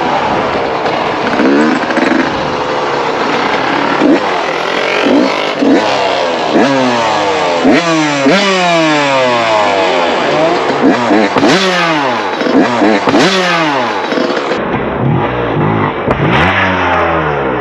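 Dirt bike engine revving repeatedly, its pitch climbing and dropping again and again as it accelerates and backs off.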